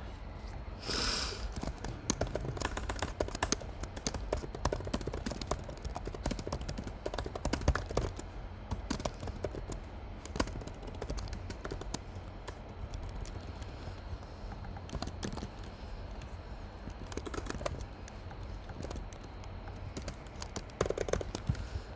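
Typing on a computer keyboard: a quick, irregular run of key clicks as a line of text is typed.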